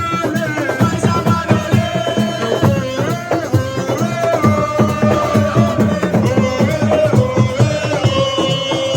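Music: fast, dense hand-drumming under a held, wavering melodic line, sung or played.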